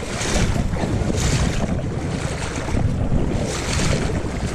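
Fast-flowing river water rushing loudly around a wading angler, a steady hiss that swells and fades, with wind buffeting the camera's built-in microphone.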